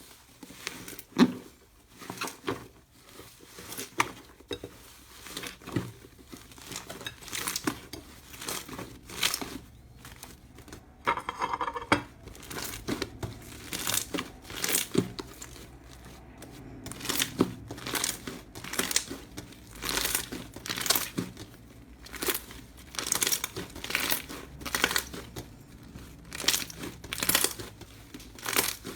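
Slime being squeezed, pressed and pulled apart by hand, giving a run of short sharp crackles and pops at irregular intervals.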